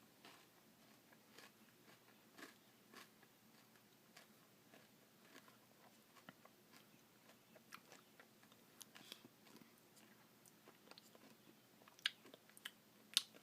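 Faint crunching and chewing of a Blizzard with crispy puppy chow pieces, soft irregular crunches, with a few sharper clicks near the end.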